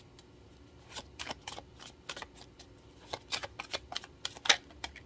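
A deck of tarot cards being shuffled by hand: quick, irregular card taps and flicks, sparse at first and picking up about a second in.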